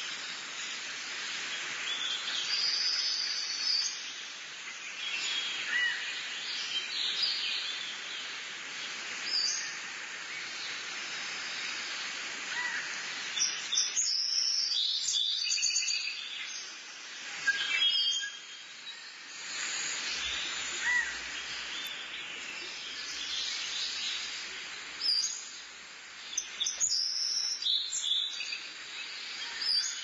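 Several wild birds chirping and calling in short notes over a steady background hiss, with the calls busiest about halfway through and again near the end.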